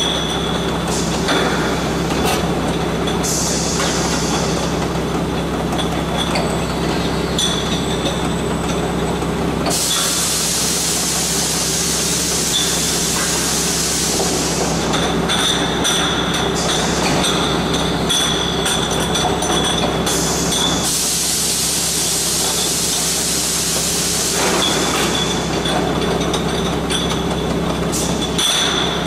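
Isobaric beer bottle filler-capper running: steady motor hum and chain-conveyor rattle, with glass bottles clinking against each other. Two long spells of gas hissing come in, about ten seconds in and again about twenty-one seconds in, each lasting a few seconds.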